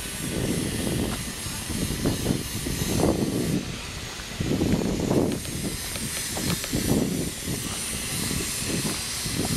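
Wind buffeting the camera microphone in irregular gusts of rumble over a steady hiss.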